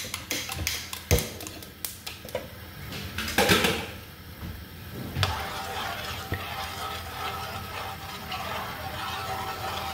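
Sauce simmering with a steady hiss in a stainless steel skillet, preceded by scattered clicks and knocks of kitchen utensils and a louder rush about three and a half seconds in; a metal spoon stirs the sauce near the end.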